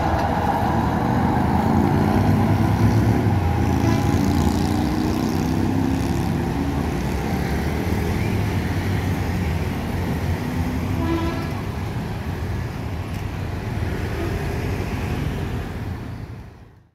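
Road traffic noise from motorbikes and cars, with the Batara Kresna railbus running on the street-side track among them. A short horn toot sounds about eleven seconds in, and everything fades out at the end.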